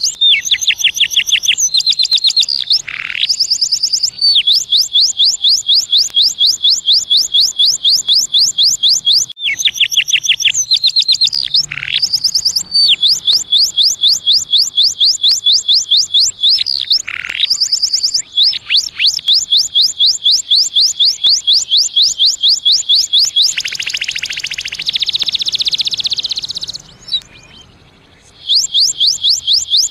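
Domestic canary singing: long, high-pitched trills of fast repeated notes, broken by short pauses and changes of phrase. About three-quarters of the way through comes a rougher, buzzy stretch, then a brief pause before the trills start again near the end.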